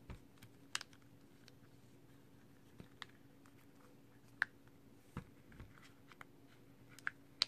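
Light, scattered plastic clicks and snaps as a rugged phone case's front cover is pressed onto its frame by hand, with a couple of soft handling thumps.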